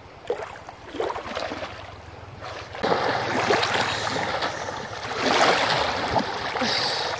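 River water splashing as a person dives under and kicks, then, from about three seconds in, the louder steady rush of shallow water running over stones, broken by the splashes of the person moving through it.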